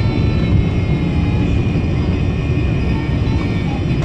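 Cabin noise inside a Boeing 787 Dreamliner on the runway at landing: a steady, loud low rumble.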